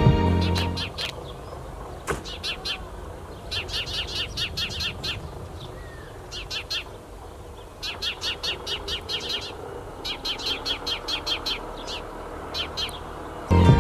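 Sparrow chirping in quick runs of repeated high notes, several runs a second or two apart over a faint background.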